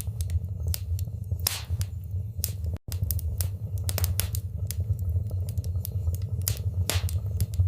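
Wood fire crackling in a fireplace: irregular sharp pops and snaps over a steady low rumble of the flames. The sound cuts out for an instant about three seconds in.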